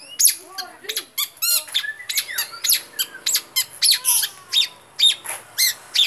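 Caged long-tailed shrike singing a fast, loud string of short, sharp notes and quick trills, several a second, with softer warbled notes mixed in.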